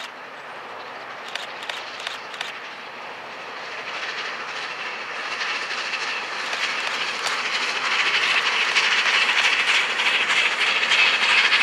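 Pacific 231 G 558 steam locomotive hauling a train of Pullman coaches past, its running noise growing steadily louder as the train draws nearer, with a run of quick repeated clicks over it.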